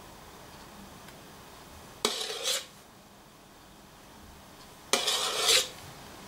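A metal spoon scrapes against a stainless steel mixing bowl while scooping sour cream, twice: about two seconds in and again about five seconds in, each scrape lasting about half a second.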